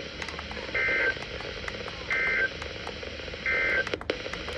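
NOAA Weather Radio sending the SAME end-of-message data: three short two-tone digital bursts about 1.4 s apart, marking the end of the warning broadcast. A sharp click near the end.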